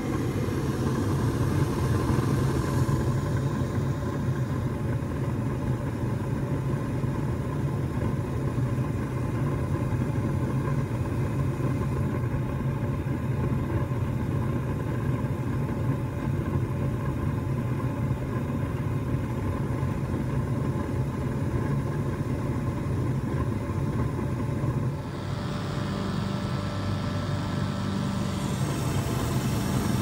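Gas furnace running with its burners lit: a steady mechanical hum. About 25 seconds in the tone shifts, with more hiss coming in.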